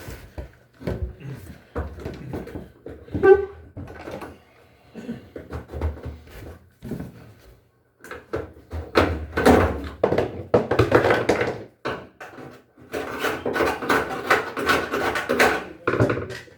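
Knocks, clicks and metallic rattling and scraping from an LG washing machine's panels being worked loose as its front end is taken off. The busiest clatter comes in two long stretches in the second half.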